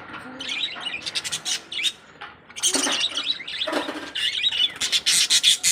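Cockatiels chirping and calling, several birds at once in quick overlapping high chirps, with a short lull about two seconds in.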